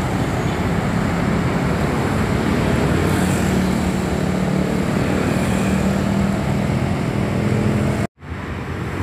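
Road traffic at a busy intersection running steadily, with a steady low engine hum through the middle; the sound cuts out abruptly for a moment near the end.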